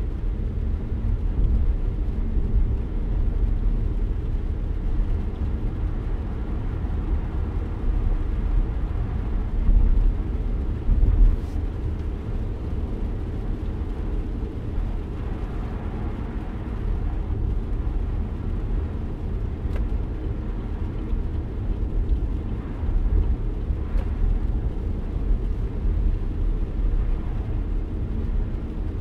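Car driving on a wet road, heard from inside the cabin: a steady low rumble of tyre and road noise with a lighter hiss of spray.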